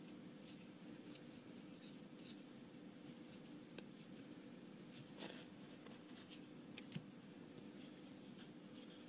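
Flesh and Blood trading cards being flicked and slid one by one off a hand-held stack, each card giving a short, soft papery snap. A quick run of flicks comes in the first couple of seconds and a few more near the middle, over a faint steady hum.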